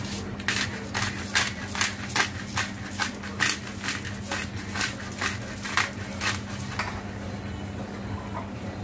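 Noodle broth boiling hard in a frying pan on an electric hob: a run of sharp popping ticks, about two to three a second, that stops about seven seconds in, over a steady low hum.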